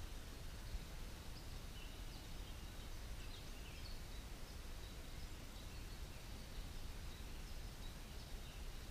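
Faint, steady outdoor river ambience of gently flowing water, with a few faint bird chirps scattered throughout.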